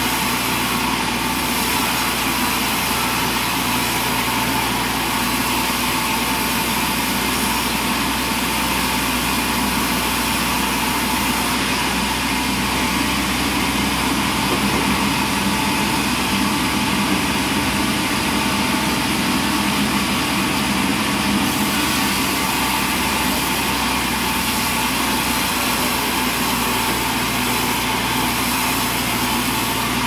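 Sawmill machinery running steadily, a loud continuous motor and saw noise with no breaks.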